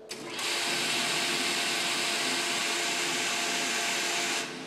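RFP residential fire protection pump, an electric motor driving the pump, switched on and running steadily with a faint whine for about four seconds, then shut off near the end. This is the sound of the pump running properly, not short cycling.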